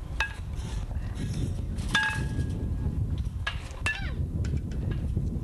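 Sharp metallic pings and clicks of baseballs striking an aluminium bat and the batting cage. The loudest comes about two seconds in with a short ringing tone, and another just before four seconds as the bat swings through. A steady low wind rumble on the microphone runs underneath.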